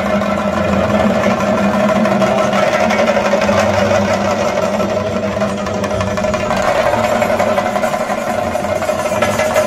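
Chenda melam: several Kerala chenda drums beaten with sticks in a fast, dense, unbroken roll.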